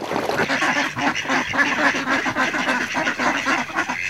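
A flock of ducks quacking together, many short calls overlapping in quick succession.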